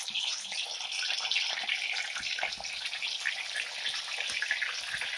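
Chilli-flake-coated chicken pieces deep-frying in hot oil in a cast-iron pan: a steady sizzle with many small crackles and pops.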